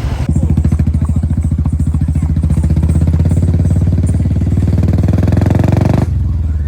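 Motorcycle engine running steadily at close range, its exhaust pulsing rapidly; the sound cuts off abruptly about six seconds in.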